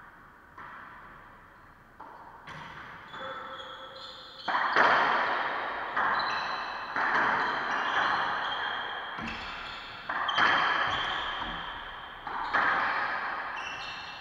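Racquetball rally: the rubber ball smacking off racquets and the court walls every one to two seconds, each hit ringing and echoing in the enclosed court. The hits grow louder about four and a half seconds in.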